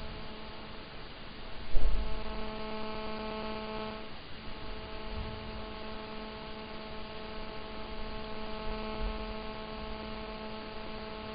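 Steady electrical hum with a buzzy stack of tones. A single low thump comes about two seconds in, and the hum briefly fades about four seconds in.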